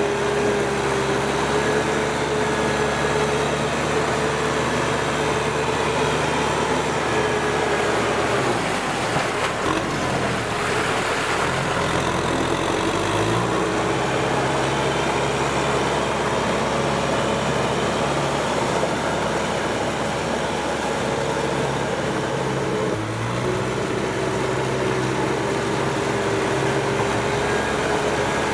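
Kubota M6040SU tractor's diesel engine running steadily as its front blade pushes mud and water through a flooded field. About a third of the way in, the engine note sags under the load for several seconds, with more splashing, then picks back up.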